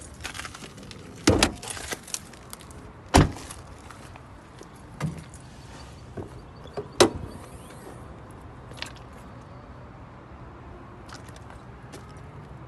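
A few sharp knocks and clunks a second or two apart, the loudest about a second and three seconds in, with smaller clicks between, then a steady low background.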